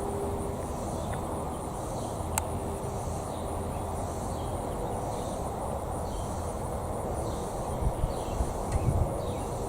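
A steady high insect drone with a regular beaded pulse over a steady low background noise. There is one sharp click about two seconds in and a few low thumps near the end.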